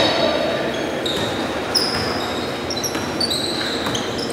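Basketball shoes squeaking on a hardwood gym floor during play, many short high squeaks, with a basketball bouncing.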